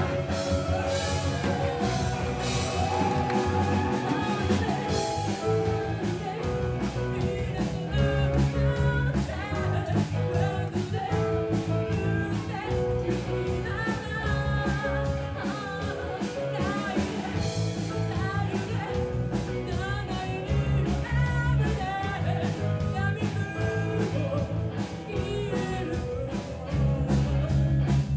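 Live rock band playing: a female lead vocalist singing over electric guitar, bass and a drum kit keeping a steady beat. The band gets louder about a second before the end.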